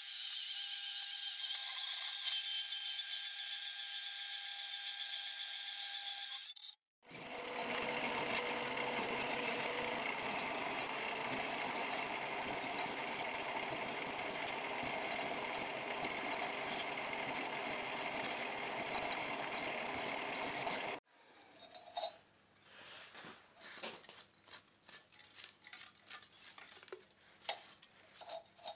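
Bandsaw blade cutting through a steel angle bracket, a steady high-pitched whine. About seven seconds in it gives way to a drill bit in a milling machine boring into the steel, a steady dense cutting noise that stops suddenly about 21 seconds in, followed by light scrapes and clicks of a brush sweeping metal chips off the workpiece.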